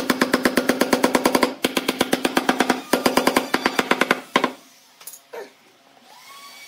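Background music with a rapid drum roll of about ten even strokes a second, broken twice, that stops about four and a half seconds in.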